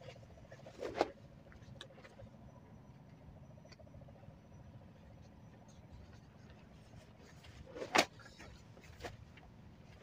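Faint steady background hum with two sharp knocks, one about a second in and a louder one near the end, and a few faint ticks between.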